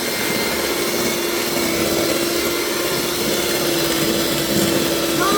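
Electric hand mixer running steadily, beating cream with dry ice into ice cream, with a steady motor hum over the whirring.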